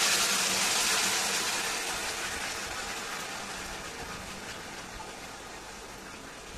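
Wet ground coconut and red-chilli masala paste sizzling as it is poured into hot coconut oil and browned onions in a steel pan. The hiss is loud at first and dies down gradually as the paste cools the oil.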